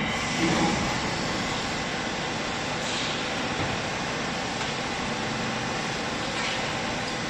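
Vertical hydraulic baler running, a steady machine noise from its hydraulic pump and motor during the pressing cycle.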